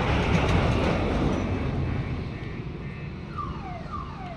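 Noise of a moving lorry, engine and road, fading over the first few seconds. Near the end come three short falling alarm-like tones in quick succession.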